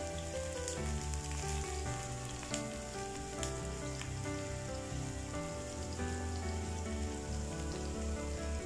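Chopped shallots sizzling steadily in hot coconut oil in a frying pan, with soft background music of held notes underneath.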